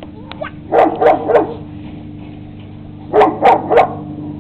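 A dog barking in two quick bursts of three barks each, about a second in and again near the end, over a steady low hum.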